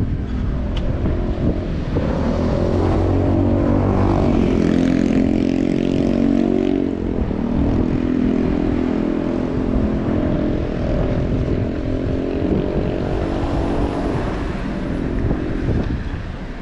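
A steady engine drone whose pitch dips and picks up again about seven seconds in, over a low rumble.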